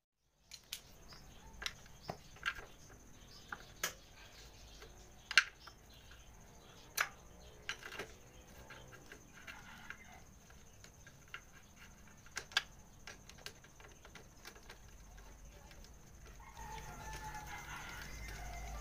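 A metal wrench clinking on the lower rear-shock mounting bolt of a scooter as the bolt is loosened. There are a dozen or so sharp, irregular clicks, the loudest about five seconds in, over a faint steady high whine.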